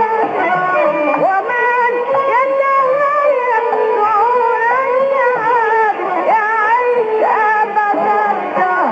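Middle Eastern-style song with a solo voice sliding and wavering between notes over accompaniment, received off the air on a medium-wave AM radio, so it sounds narrow and muffled.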